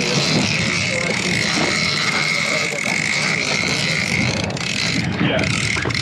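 Shimano Tiagra 130 big-game reel being cranked to win back line from a hooked marlin, its gears whirring under load, over the steady running of a boat engine.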